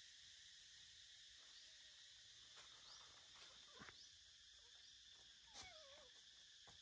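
Faint outdoor quiet with a steady insect drone. Light crackles of dry leaf litter come as a young macaque steps across it, and a short wavering squeak sounds about five seconds in.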